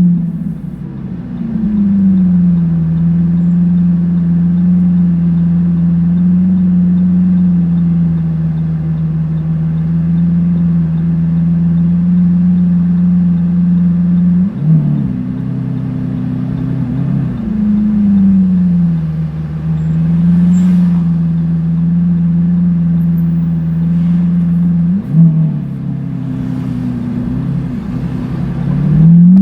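Lamborghini Aventador S V12 with a Power Craft aftermarket exhaust, running steadily at low revs. Two quick throttle blips make the pitch jump and fall back, about halfway and about three-quarters through, and the revs start to climb at the end.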